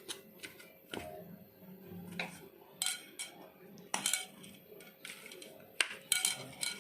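A spoon scraping and clinking irregularly against a bowl while chopped boiled eggs are mixed, with a few sharper clinks along the way.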